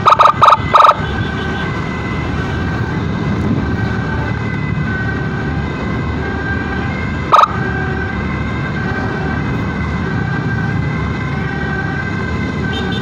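Emergency siren sounding steadily over road and engine noise, with three short, loud blasts in the first second and another about seven seconds in.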